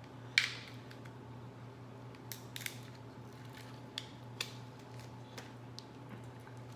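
Scissors snipping and cracking through a crab shell in a series of sharp, irregular clicks, the loudest about half a second in, over a steady low hum.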